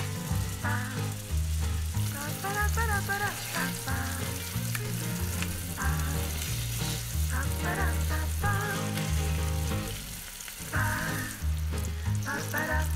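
Tomato slices sizzling in hot oil in a frying pan, a steady high hiss. Background music with a pulsing bass line and a melody plays over it and is the loudest sound.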